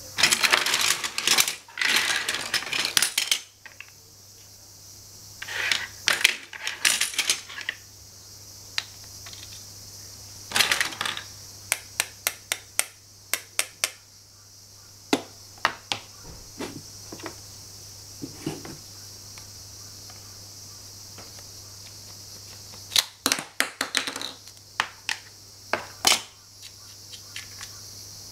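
Plastic and wooden pieces of a children's toy tool set clattering and clicking as they are handled and set down: a dense clatter at the start, then several spells of sharp clicks and knocks with quiet gaps between, under a faint steady hum.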